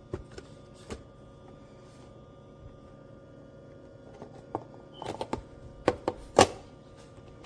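A handful of sharp clicks and knocks from hard objects being handled, two near the start and a cluster of louder ones about five to six and a half seconds in, over a faint steady hum.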